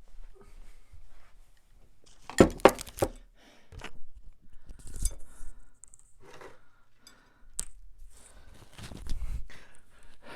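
Objects being handled and set down: irregular clatter and rustling, with a quick run of sharp knocks about two and a half seconds in.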